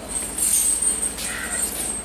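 Heavy steel tyre chain on a snowplough truck wheel jangling and clinking as it is handled and tightened, in short bursts about half a second and a second and a half in.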